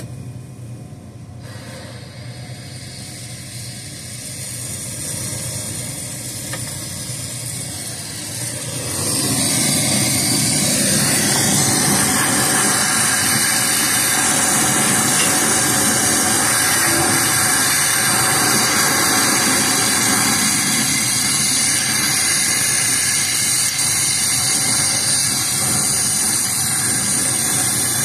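Brazing torch flame hissing steadily as it heats a copper return bend on a cooler coil to braze a refrigerant leak. It starts quiet, then grows much louder about nine seconds in and holds steady.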